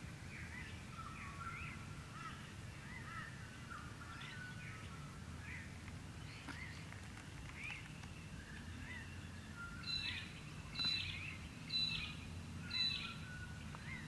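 Dawn chorus of many small birds chirping and whistling, then a magpie-lark (peewee) calling four times about a second apart near the end. A low steady hum runs underneath.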